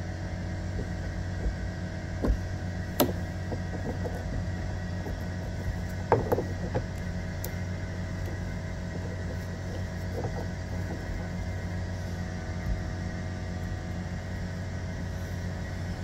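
Steady low background hum, with a handful of light clicks and taps a few seconds apart as multimeter probes are handled against an old spark plug's centre and ground electrodes.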